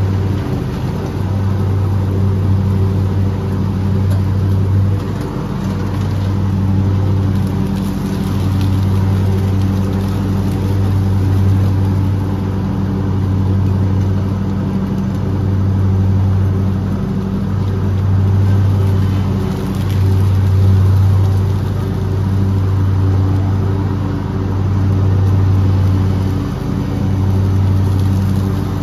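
Lawn mower engine running steadily, its low hum dipping briefly every few seconds.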